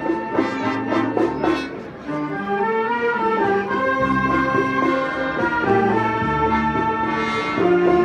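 Wind band playing: brass, clarinets and saxophones in held chords under a moving melody. The sound dips briefly about two seconds in, then the full band comes back in.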